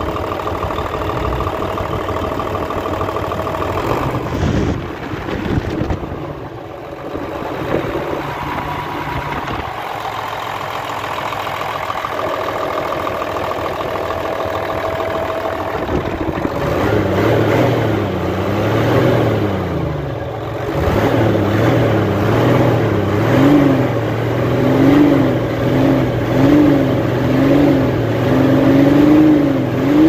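Hino J08C six-cylinder truck diesel running at idle on its test start after a replacement air compressor and the injection pump were fitted, checked for sound and timing. From about halfway it is revved by hand at the injection pump lever, the pitch rising and falling, with several quick revs near the end.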